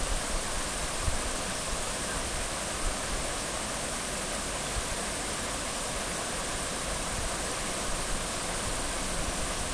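Fast river rapids rushing steadily, a constant hiss of white water.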